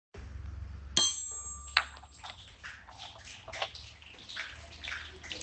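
Rain dripping and tapping in irregular drops, with a sharp ringing metallic ping about a second in and another loud tap shortly after, over a low rumble.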